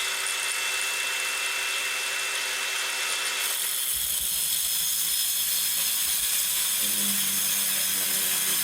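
Battery-powered power tool cutting through a clamped steel pipe, running steadily with a dense, hissing cutting noise that changes character about three and a half seconds in.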